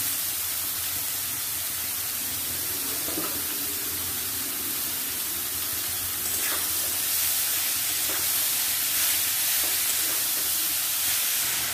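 Oil sizzling steadily in a kadai where potato pieces are frying under a heap of freshly added grated raw papaya, with a few faint ticks in the second half.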